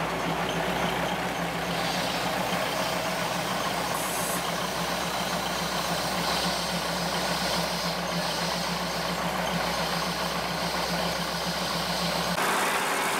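Diesel railcar engine running steadily as the passenger train rolls slowly past at close range. The low engine drone cuts off near the end.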